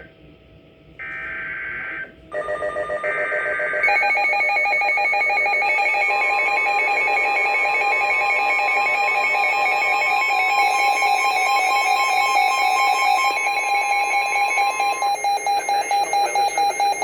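NOAA Weather Radio alert tones for a severe thunderstorm warning. Two one-second bursts of the SAME digital header, warbling data tones, come first. Then an alarm beeps in rapid even pulses from about two seconds in, with a steady attention tone sounding under it for several seconds in the middle.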